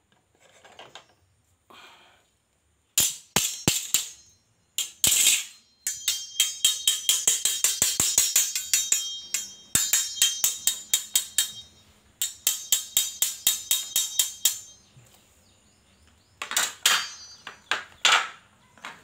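Two Tramontina carbon-steel machete blades, a 22-inch and a 24-inch, knocked against each other, each blade-on-blade strike giving a bright metallic ring. After a few soft handling sounds come single clashes, then a fast run of several strikes a second, then a few more strikes near the end.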